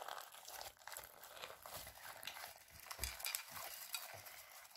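Hands squishing and stirring a big batch of slime packed with small plastic beads: a faint, irregular crackling and popping as the beads and slime are worked together.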